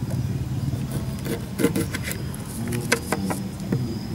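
A kitchen knife cutting through a lime on paper over a tabletop: a few short scrapes and sharp taps as the blade goes through and meets the table, over a steady low hum.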